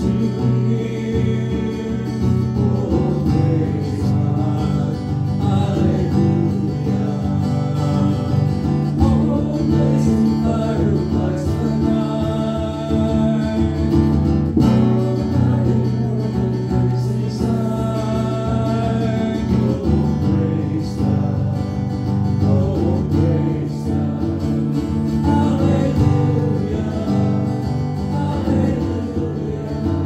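A hymn sung by voices to a strummed acoustic guitar.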